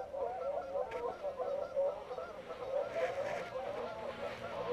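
Flock of Canada geese honking, many calls overlapping without a break.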